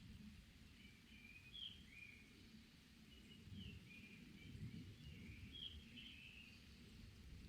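Faint forest birdsong: many short high chirps and quick phrases following one another, over a low rumble.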